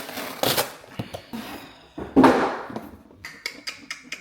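Packaging being handled and opened: crinkling, rustling and a few sharp clicks and knocks, with one louder rustle about two seconds in.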